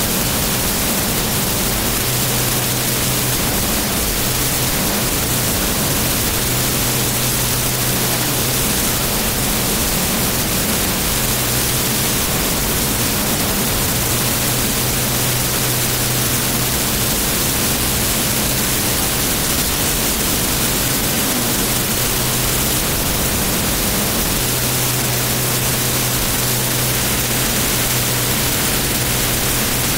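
Jet truck's jet engine running, heard from a camera mounted on the truck as a loud, steady rushing noise that holds the same level throughout.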